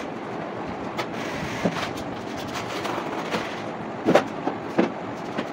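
Steady background noise with scattered light knocks and clicks, the loudest a little over four seconds in.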